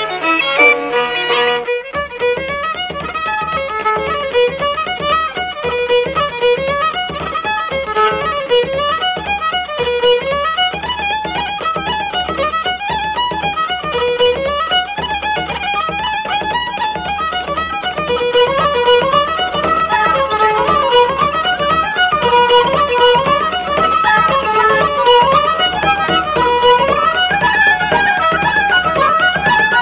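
Background music: a lively fiddle tune of quick running notes over a steady accompaniment, which changes about two seconds in.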